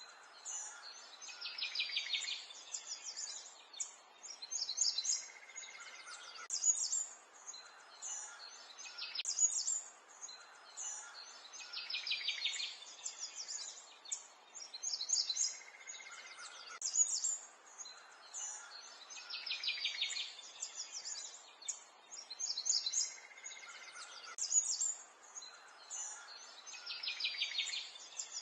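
Songbirds chirping and trilling, with short high calls throughout and a rapid trill recurring every several seconds.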